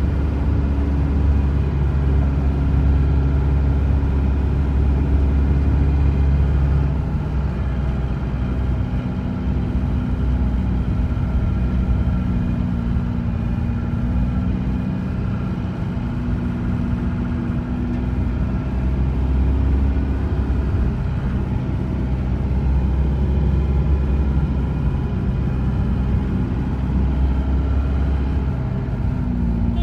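Engine and road rumble of a moving vehicle heard from inside the cabin. The engine note drops about a quarter of the way in, then climbs again as it drives on.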